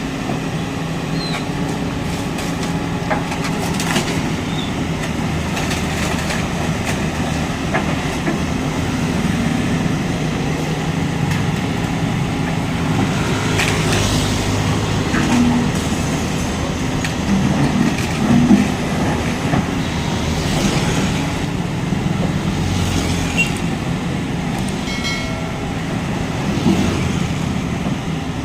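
Excavator's diesel engine running steadily as it demolishes a house, with scattered knocks and clatter of breaking concrete and debris.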